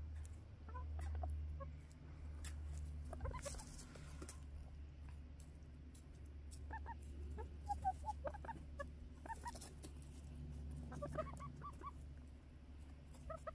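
A small flock of 17-week-old backyard pullets clucking softly and making short calls close to the microphone. Scattered clicks and rustles come through, with the calls bunching up about halfway through and again near the end.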